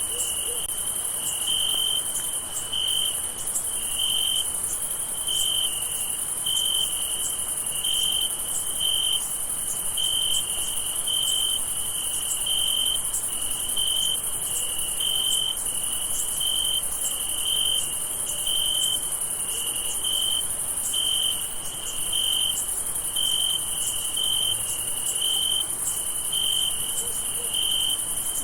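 Crickets chirping at night: a chirp repeating in an even rhythm, a little faster than once a second, over a continuous high-pitched insect trill.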